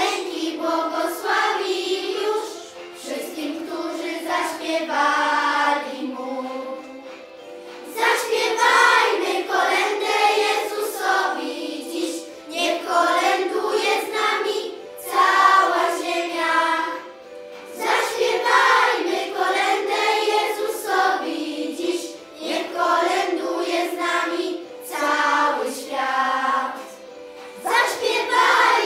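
Children's choir singing a Christmas carol, in phrases with short pauses between them.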